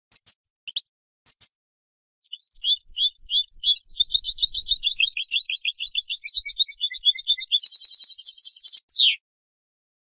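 European goldfinch singing. A few short call notes open it, then a long run of rapid twittering notes that ends in a fast, even trill and one falling note about nine seconds in.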